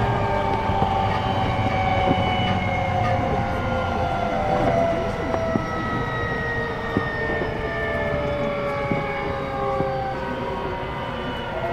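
Running sound inside an E233-6000 series electric train: a whine from the traction motors in several tones, falling slowly in pitch as the train slows, over a steady rumble of wheels on rail with scattered clicks.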